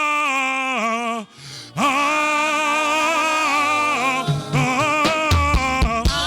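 A single voice sings long, wavering held notes with a short break about a second in. Low bass notes and drum hits come in near the end.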